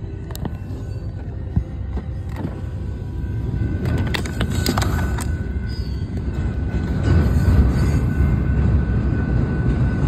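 Double-stack intermodal freight train cars rolling past: a steady low rumble of wheels on rail that grows louder in the second half, with a cluster of sharp clicks about halfway through.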